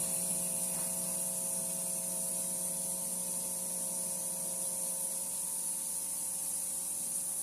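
De'Longhi Magnifica Evo bean-to-cup coffee machine dispensing coffee into the cup: a steady hum with a high hiss.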